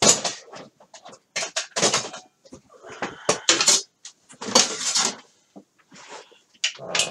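Irregular clatter, knocks and rustling of tools and small parts being picked up, moved and set down on a workbench.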